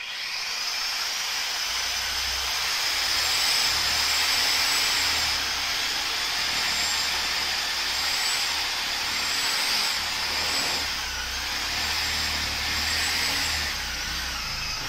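Sawzall reciprocating saw running continuously as it cuts through a large ham bone. The high motor whine wavers slightly in pitch over a pulsing low rumble.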